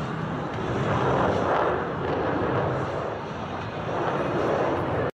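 Airplane engine noise from aircraft flying past: a dense rushing sound that swells and eases a few times.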